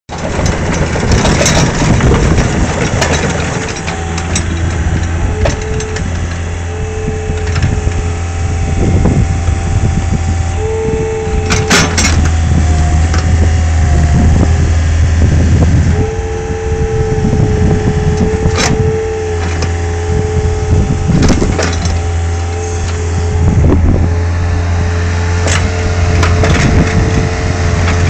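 Nissan/Hanix 450 mini excavator's diesel engine running steadily while its hydraulics are worked, with a whine that comes and goes and shifts pitch as the boom, arm and swing move. Several sharp clanks from the arm, bucket and tracks are scattered through it.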